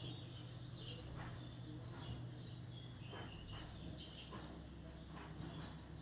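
Parakeets feeding from a bowl of bread: a few faint, short chirps and scattered soft taps over a steady low hum.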